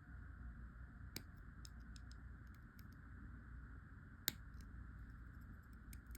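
Faint clicks and small taps of craft wire and a hand tool being worked while a cut wire end is tucked in, with one sharp click about four seconds in.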